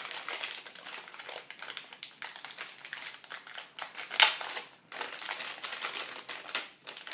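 Crinkling and crackling of a small clear plastic bag handled between the fingers, with one sharp, louder crackle a little past the middle.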